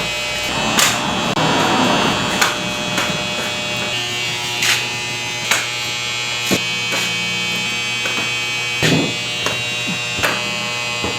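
Electric massager's motor running with a steady buzzing hum, with a sharp tap now and then.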